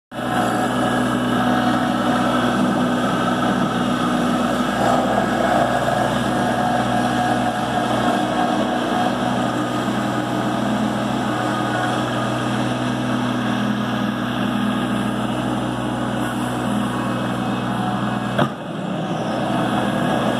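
Kubota B2650 compact tractor's three-cylinder diesel engine running steadily as the tractor plows and scrapes snow along the road. One sharp click comes about 18 and a half seconds in.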